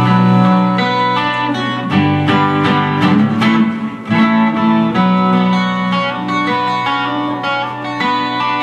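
Instrumental ending of an enka ballad: plucked guitar notes over sustained backing chords, with a quick run of notes about halfway through, after the singing has stopped.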